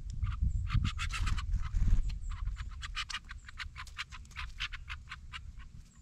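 Rapid series of short, sharp chip calls from small birds at a seed feeder, several a second. Under them is a low wind rumble on the microphone, strongest in the first two seconds.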